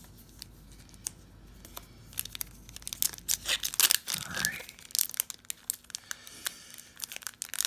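Foil trading-card pack being crinkled and torn at by hand, quick irregular crackles that start about two seconds in and grow busier. The sealed wrapper is resisting being opened.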